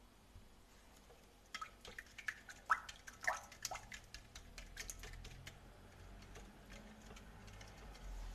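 Balloon whisk beating thin liquid batter in a glass bowl: a run of light, quick clicks of the whisk against the glass in the first few seconds, then a faint, steady swishing of the liquid.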